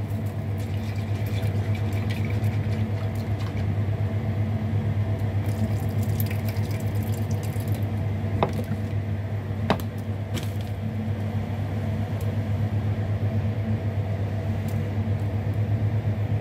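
A small motor's steady low hum, as from a kitchen appliance, with two light knocks of handling a little past halfway.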